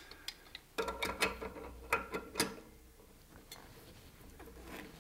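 Irregular metallic clicks and clinks of tongue-and-groove pliers on brass fittings as a brass drain valve is threaded and tightened onto a tee, a handful of separate clicks over the first few seconds, over a faint low hum.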